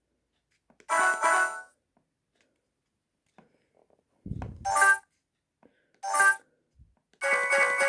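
Samsung SGH-Z240 mobile phone playing a ringtone through its speaker: a short phrase of electronic notes, a pause of about two and a half seconds, then the tune comes back in short bursts of notes. A soft low thump comes just before the notes return.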